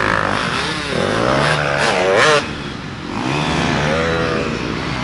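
Dirt bike engines revving up and down as riders come through thick mud one after another. The loudest rev climbs high just past two seconds in and cuts back suddenly, then another bike revs up near the end.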